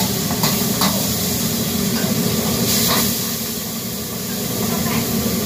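Stir-fry food sizzling in a wok over a steady rushing high-flame wok burner, with the metal ladle clicking and scraping against the wok several times. A brief burst of louder hissing comes about three seconds in as steam billows up from the wok.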